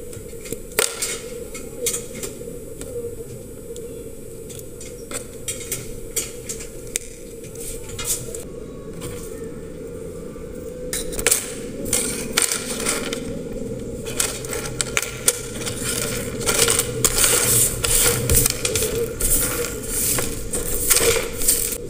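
Rusted metal terminal strips and diodes from a solar-panel junction box clicking, clinking and scraping as they are handled with pliers and set down on a tabletop, over a steady low hum. The clinks come more often and louder from about halfway through.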